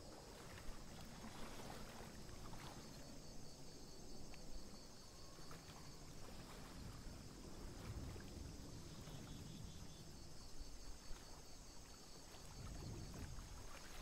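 Faint outdoor wetland ambience: a steady low rumble with a few soft ticks and rustles.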